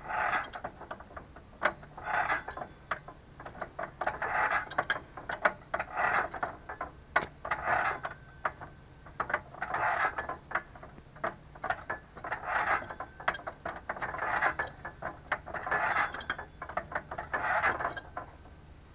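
Threaded steel drill-pipe sections, freshly oiled, being screwed together by hand: a metallic rasping and clicking from the threads, coming in short bursts about every two seconds with each turn.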